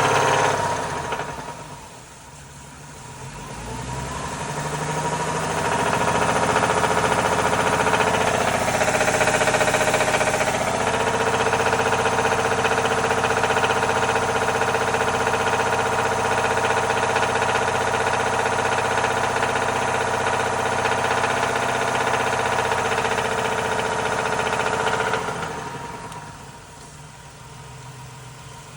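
Vehicle engine revving up about four seconds in, held at raised speed for about twenty seconds, then dropping back to idle near the end. Its owner tags it as knocking and pinging, the sign of a badly damaged engine.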